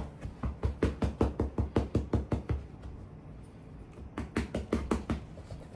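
Rapid, evenly spaced thumping knocks, about six a second, in two runs with a short lull in the middle.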